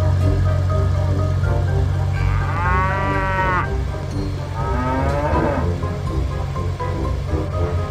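Background music with short repeated notes and a steady bass. Two drawn-out, wavering calls are laid over it, the first about two seconds in and the second a little before the five-second mark.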